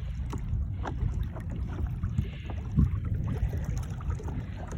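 Wind rumbling on the microphone, with small slaps and splashes of water against the hull of a Hobie sailing kayak under way.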